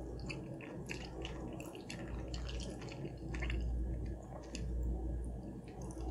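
Wet, sticky squelches and irregular little clicks of a fork digging into baked macaroni and cheese and pulling up long strings of melted cheese, over a low steady hum.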